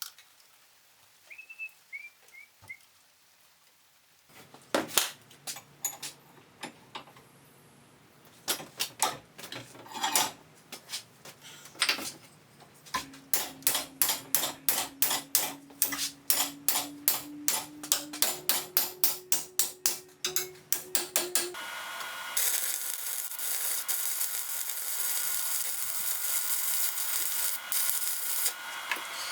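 Music with a steady beat. About two-thirds of the way through, a steady, dense hiss like a belt grinder running takes over.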